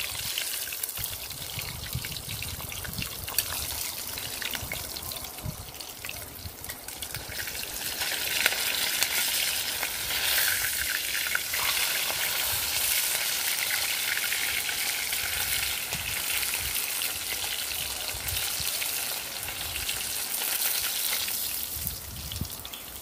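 Pieces of mutton snapper frying in hot oil in a cast-iron pot, a steady sizzle with small clicks from a metal fork turning them. The sizzle grows louder about a third of the way in and drops away near the end as a fried piece is lifted out.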